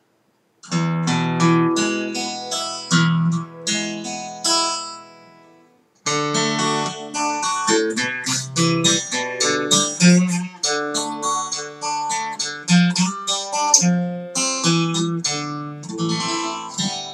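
Acoustic guitar picked with a plectrum. A few slow, ringing notes stop briefly about five and a half seconds in, then a quicker run of picked notes follows at roughly three or four a second.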